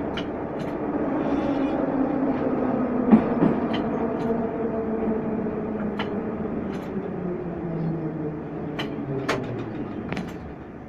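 Metro train slowing to a stop, heard from the driver's cab: the motor whine falls steadily in pitch and the running noise fades. Several sharp clicks and knocks sound over it, the loudest about three seconds in.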